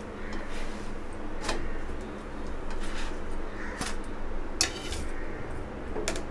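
Nylon spatula clicking and scraping against a granite-coated nonstick tava as a chapati is lifted off and set on a steel plate: about half a dozen short clicks and scrapes, one slightly longer scrape a little past the middle.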